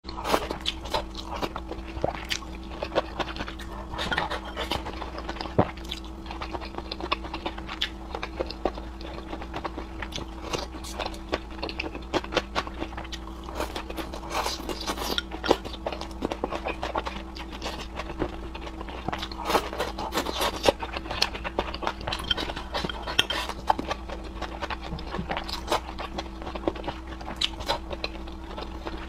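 Close-miked eating: chewing and slurping noodles, with many small mouth smacks and clicks of chopsticks against the bowl throughout, over a faint steady hum.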